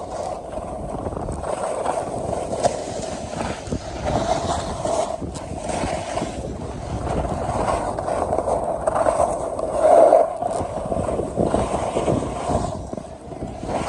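Skis sliding and carving on groomed, packed snow, a continuous rushing scrape that rises and falls with the turns and is loudest about ten seconds in, with wind on the phone's microphone.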